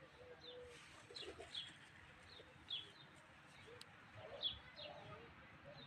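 Faint birdsong: small birds giving short, high, falling chirps at irregular intervals, with a dove cooing low in between.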